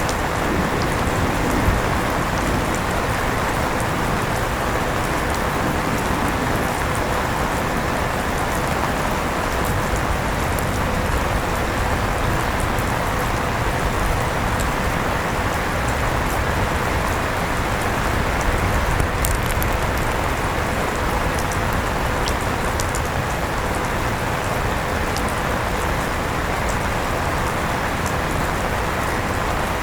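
Steady rain falling, with scattered faint drop ticks, mixed with an electric fan running steadily and a faint constant hum.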